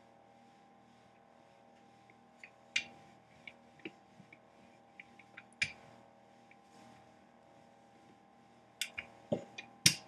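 Irregular clicks and knocks of a rolling pin on the work surface as a slab of Danish pastry dough is rolled out, coming more often near the end. A faint steady hum runs underneath.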